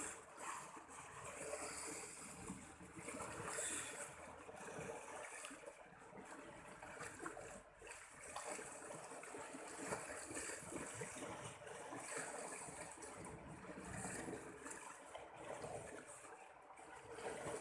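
Faint flowing, trickling water, low and irregular.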